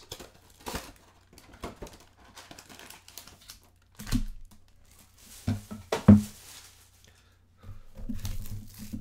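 Trading-card pack wrappers crinkling and rustling as the packs are taken out of a cardboard hobby box, with scattered taps and thumps and a sharp knock about six seconds in.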